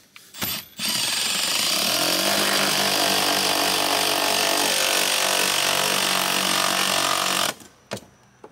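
Cordless drill running steadily for about six and a half seconds as the bit bores through the siding into a wooden wall stud, then stopping abruptly, with a click just after.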